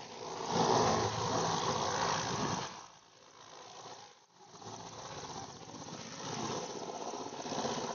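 Rushing, hissing noise from a parked Mi-17 helicopter's turbines and rotor at ground idle. It rises and falls, dips about three seconds in and almost cuts out for a moment a little after four seconds.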